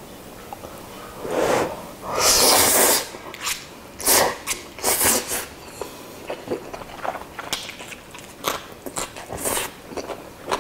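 A man loudly slurps up a mouthful of Chapagetti black-bean instant noodles. There are two long slurps, about a second and a half and two and a half seconds in, the second the longer and louder. Open-mouthed chewing follows, with short smacks and clicks.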